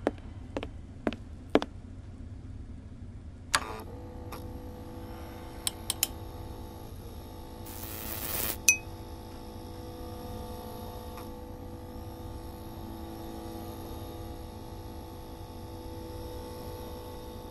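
Sound effect of a neon sign coming on. A few sharp electrical clicks, then one more about three and a half seconds in, after which a steady electrical hum with several tones runs on. Around eight seconds a hissing swell ends in a sharp click.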